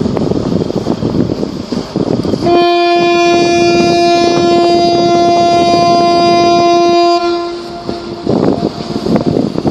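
A ship's horn sounds one long blast of about five seconds at a single steady pitch, then cuts off and dies away. Wind buffets the microphone before and after the blast.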